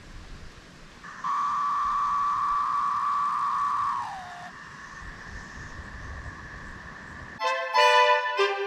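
A long horn-like toot, two notes held together for about three seconds and sagging in pitch as it dies away. Brass music starts near the end.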